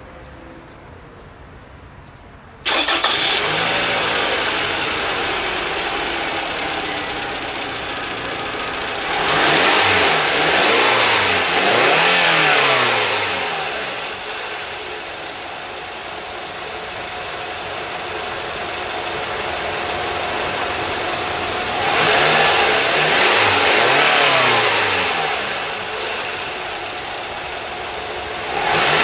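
2014 Toyota Camry's 2.5-litre naturally aspirated four-cylinder engine starting suddenly about three seconds in and running at a fast idle that slowly settles. It is revved twice, rising and falling in pitch over a few seconds each time, about nine seconds in and again about twenty-two seconds in.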